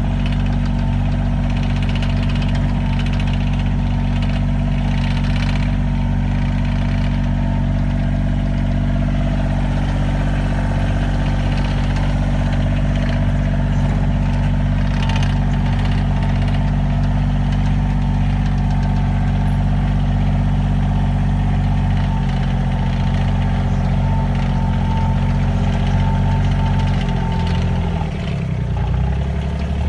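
A farm vehicle's engine running steadily at low speed. Near the end its pitch sags briefly, then picks up again.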